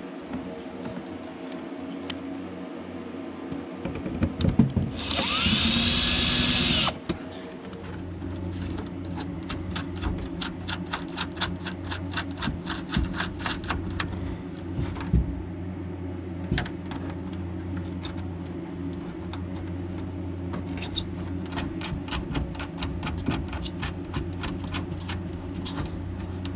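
A power drill runs for about two seconds, its pitch rising and then falling, followed by a long run of rapid clicking.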